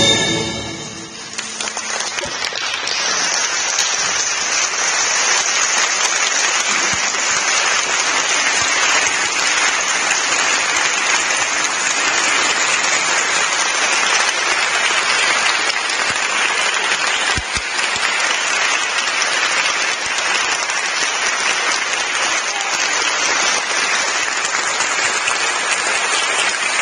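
Audience applauding: the ensemble's final note dies away in the first second, then the clapping rises and keeps up as a steady, even wash.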